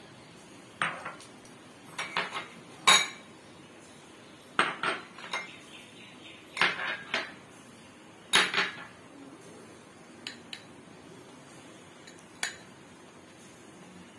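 Glass bowls clinking and knocking against the rim of a glass mixing bowl as dry ingredients are tipped in, about a dozen sharp clinks in irregular groups of one to three.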